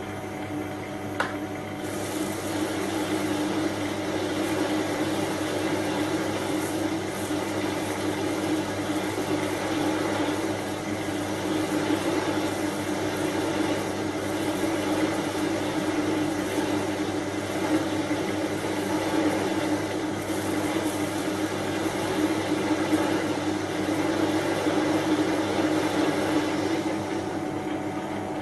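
Small Chinese benchtop metal lathe running at its slowest speed while a heavy parting-off blade cuts through a large home-cast aluminium round: a steady motor and gear hum under the continuous noise of the cut. A single sharp tick comes about a second in, and the cutting noise grows fuller about two seconds in.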